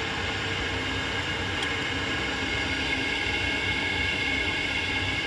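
Worcester Greenstar 18Ri condensing boiler running, a steady fan and burner hiss with a low rumble and a faint high whine.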